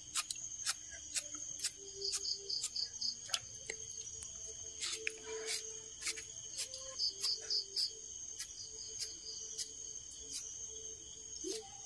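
Kitchen knife slicing green chillies held in the hand, a sharp click about twice a second as each piece is cut off and falls into a clay pot. A steady high-pitched insect chirring runs behind it.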